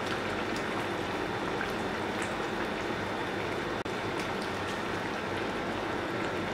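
Red chili and tamarind curry gravy bubbling at a full boil in a pot: a steady bubbling hiss with scattered small pops.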